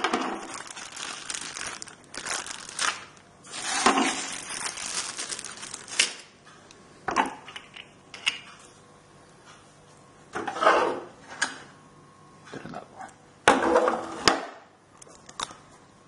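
Clear plastic wrapping crinkling and rustling in irregular bursts as small vacuum-cleaner accessories are unwrapped and handled, with a few sharp clicks and knocks of the plastic parts.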